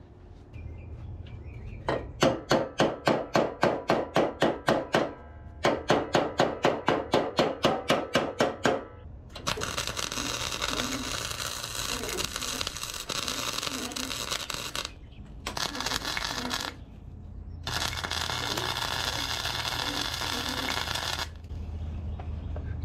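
Wire-feed (MIG) welder welding a steel patch onto a mower deck: first two runs of rapid pulsed arc strikes, about five a second, then three longer runs of steady arc noise with short pauses between them, stopping a little before the end.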